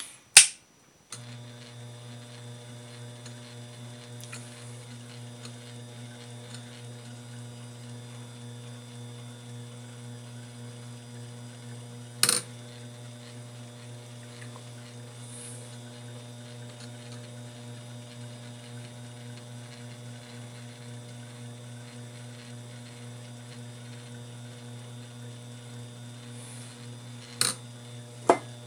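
Sherline mill's spindle motor switched on with a click and then running with a steady hum. A single sharp click comes about twelve seconds in, and two more come near the end.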